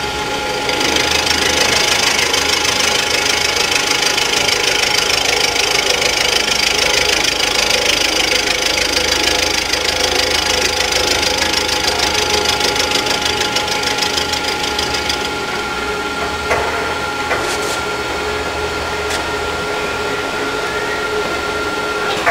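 Rottler F90Y CNC machining center milling an engine block's head gasket deck around a water hole by circular interpolation: the spindle whines steadily while the end mill cuts with a dense, gritty cutting noise. The higher cutting noise drops away about fifteen seconds in, with a couple of short clicks just after, while the machine keeps running.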